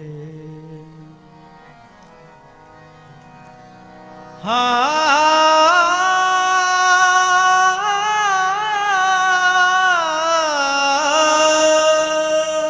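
Sikh shabad kirtan: harmonium drone playing softly. About four seconds in, a male singer comes in loudly with one long, ornamented held note over the harmonium.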